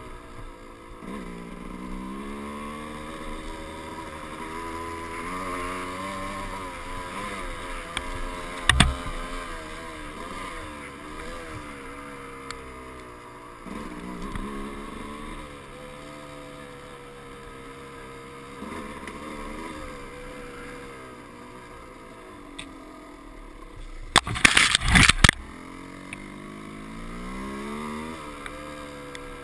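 Off-road motorcycle engine running and revving along a trail, its pitch climbing again and again as it accelerates through the gears. A sharp knock comes about nine seconds in, and a louder burst of knocks comes a few seconds before the end.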